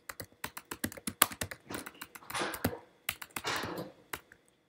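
Typing on a computer keyboard: quick, uneven runs of keystrokes.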